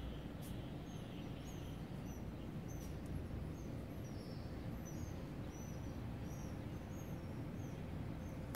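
A bird calling outdoors: short, high chirps repeated about once or twice a second, over a steady low background rumble.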